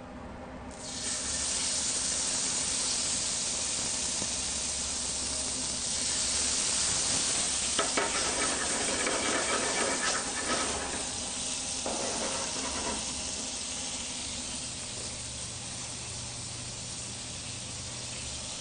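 Meat medallions searing in hot oil in a frying pan on a gas range: a loud sizzle starts about a second in, strongest around the middle as the pan flares up in flames, with a few clicks of metal against the pan, then eases off a little.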